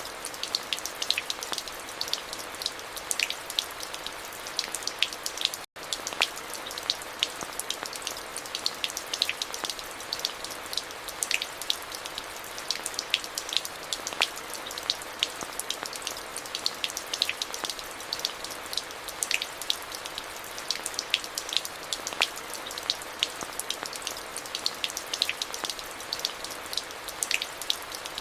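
Steady rain: an even hiss full of many separate, sharp drops striking a hard surface. The sound cuts out for an instant about six seconds in.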